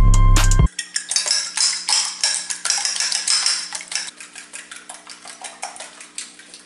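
Music with a heavy beat cuts off under a second in. Then a fork beats eggs in a bowl: rapid, uneven clinking of metal against the bowl, slowly getting quieter.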